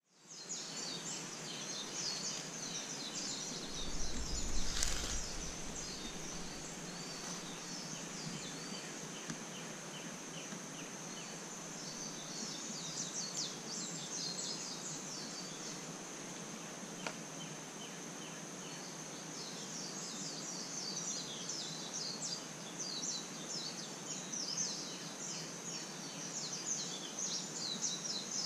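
Outdoor ambience of birds chirping rapidly over a steady high-pitched drone. A brief low rumble sounds about four to five seconds in.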